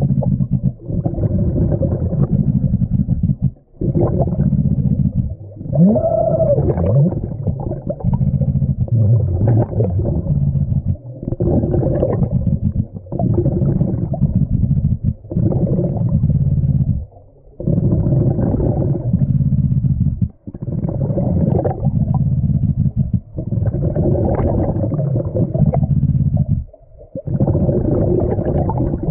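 A diver's breathing underwater: rumbling, gurgling bubble noise in repeated bursts every two to three seconds, each broken by a brief pause.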